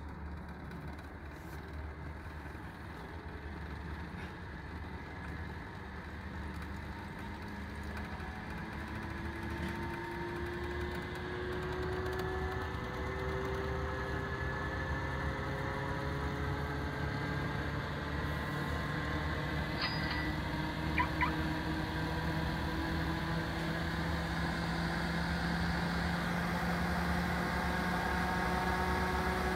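Western Scientific Silencer H-103NA centrifuge running, its motor and rotor whine slowly rising in pitch and getting louder as it spins up. A couple of clicks come about two-thirds of the way in.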